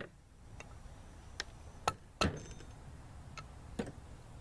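Rubber mallet striking a spark plug socket set on a valve spring retainer of a Honda F22B1 cylinder head: about six sharp knocks at uneven intervals, the two loudest close together near the middle. The blows drive the retainer down to knock the valve keepers loose and free the spring without a spring compressor.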